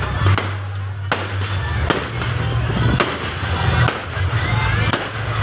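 Aerial fireworks bursting with sharp bangs roughly once a second, over music with a heavy bass.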